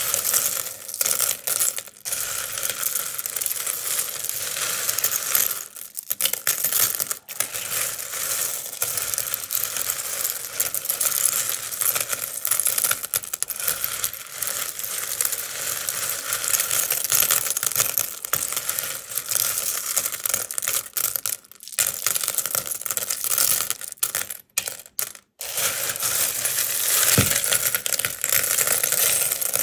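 Hands sifting and scooping through a heap of loose buttons in a wooden bowl: a dense, continuous clatter of buttons clicking against each other and dropping back into the pile. The clatter breaks off briefly a few times, most clearly about 25 seconds in.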